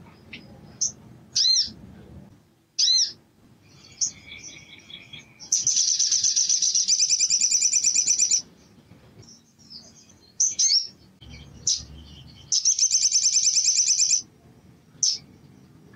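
Male olive-backed sunbird singing: sharp, high single chirps broken by two long, fast trilled runs of song, one of about three seconds and one of about a second and a half.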